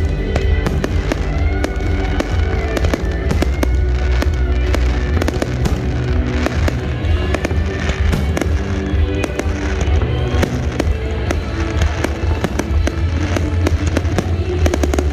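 Fireworks bursting and crackling in rapid, dense succession, with deep booms, over music playing throughout.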